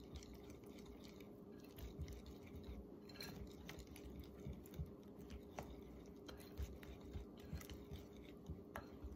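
Wire whisk stirring flour into thick, wet banana-bread batter in a glass bowl: faint, irregular soft squishing strokes, with now and then a light tick of the whisk against the glass.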